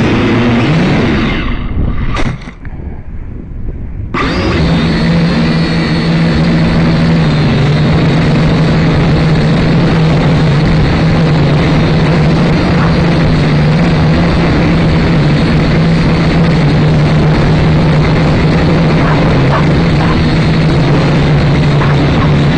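Syma X5C quadcopter's motors and propellers running with a steady whirring hum. The sound drops away about a second and a half in and comes back abruptly about four seconds in.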